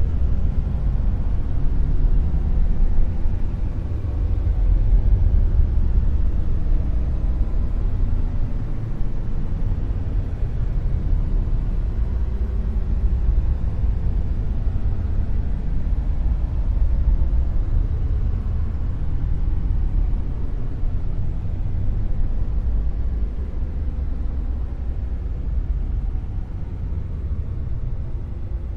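Dark noise: a steady, deep rumbling hiss, strongest in the low bass and thin in the highs, swelling and easing slowly.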